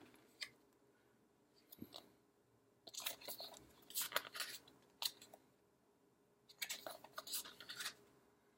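Stiff card postcards being handled and shuffled, with short scraping and rustling bursts of card on card, in about half a dozen separate goes.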